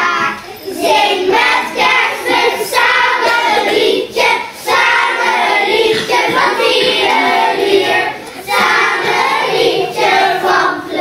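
A group of young children singing together as a choir, phrase after phrase, with brief breaks between lines about four and eight seconds in.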